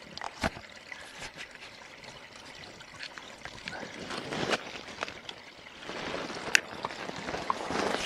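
A small forest stream trickling and gurgling as it runs under a snow-covered log, with scattered sharp clicks and knocks over it.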